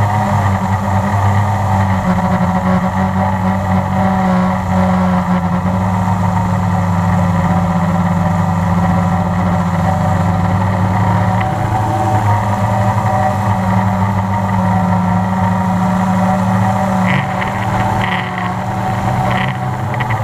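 Multirotor drone's electric motors and propellers buzzing steadily in flight, recorded from the drone's own onboard camera, the pitch wavering slightly as the motors adjust speed.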